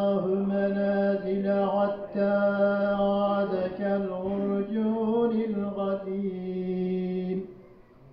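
A man recites the Quran aloud in a slow melodic chant into a handheld microphone, drawing out long held notes. The voice stops a little after seven seconds in.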